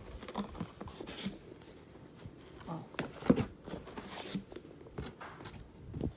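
Books being handled in a cardboard box: paperbacks sliding against each other and the cardboard, with soft knocks and rustling, the loudest knock about three seconds in.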